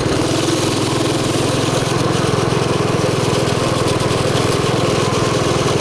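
Mini bike's small engine running steadily as it is ridden, an even stream of firing pulses.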